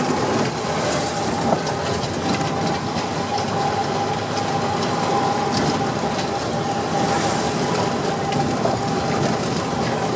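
Truck on the move: its MWM diesel engine running steadily with the long exhaust tip taken off, under road and rattle noise and a steady whine.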